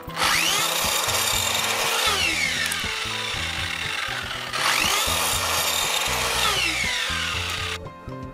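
Sliding miter saw run twice, cutting through a bundled panel of thin wooden kumiko strips. Each time the motor whines up to speed, runs through the cut, and winds down with a falling whine. Soft background music sits underneath.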